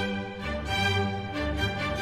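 Instrumental theme music: a slow melody of held notes.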